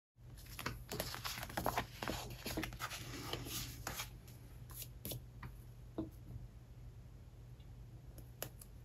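Paper handling: a sheet of planner stickers rustling and crinkling as it is lifted off a spiral planner, with light clicks of stickers being peeled and pressed onto the page. The crinkling is dense for the first few seconds, then thins to a few scattered clicks over a faint steady hum.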